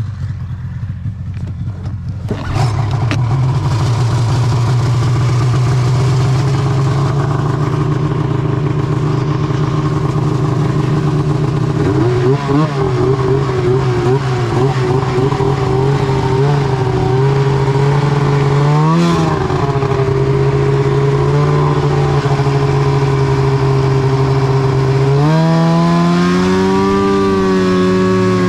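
Arctic Cat M8 snowmobile's two-stroke twin engine running just after starting, its pitch wavering with a few brief throttle blips, then revving up near the end as the sled pulls away.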